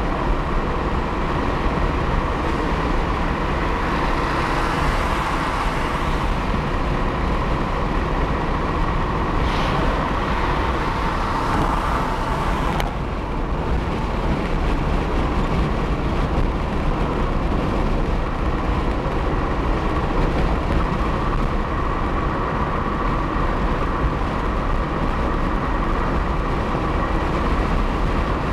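Steady road noise of a car driving at freeway speed: tyre hum and wind hiss, with the higher hiss dropping away suddenly about halfway through.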